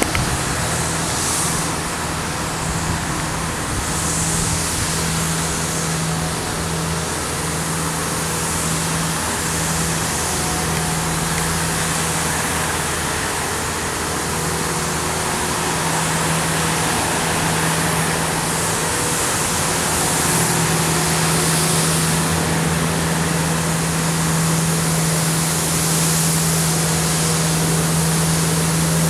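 Elgin Pelican street sweeper's diesel engine running at a steady hum under a wide hiss of brooms and wet road, getting a little louder in the last third as the sweeper comes nearer.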